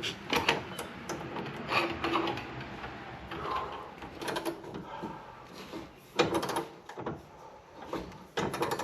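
Ratcheting breaker-bar setup clicking in short, irregular runs and clanking as it is worked against a seized bolt that won't break loose.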